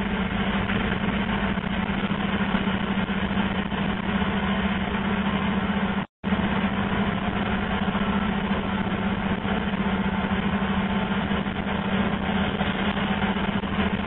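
Fibre-optic cable blowing machine and its compressed-air supply running steadily: a constant engine-like drone with a strong hum. The sound cuts out completely for a moment about six seconds in.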